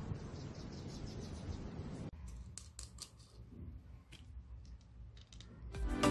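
Small sharp plastic and metal clicks and taps as a Shure MV88+ microphone, its thumbscrew mount and phone clamp are handled and fitted together. This follows a steady hiss in the first two seconds, which stops abruptly, and music comes in near the end.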